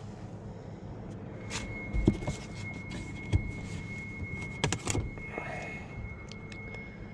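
A few sharp clicks and knocks from parts of a 2020 Lincoln Corsair's interior being handled, over a steady low hum. A thin, steady high tone comes in about a second and a half in and holds.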